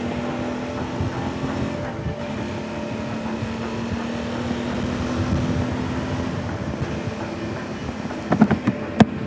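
Suzuki V-Strom DL650A's V-twin engine running on the move, with wind rushing over the helmet-camera microphone. A steady engine note holds for about six seconds, then fades, and a few sharp knocks come near the end.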